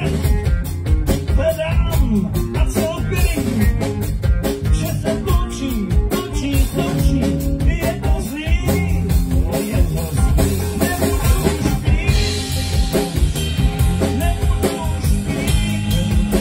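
Live blues-rock band playing an instrumental passage on electric guitar, bass guitar and drum kit, with a steady beat.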